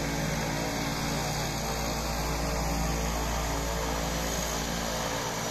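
Small turboprop airplane on final approach, its engines and propellers giving a steady drone of several tones over a broad hiss.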